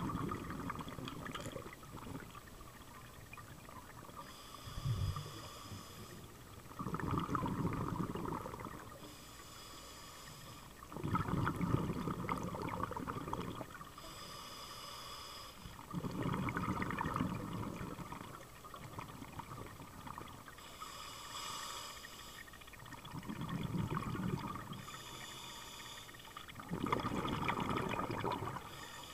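A scuba diver breathing through a regulator underwater: a short hissing inhale alternating with a louder rush of bubbling exhaust, in a steady cycle of about one breath every four to five seconds.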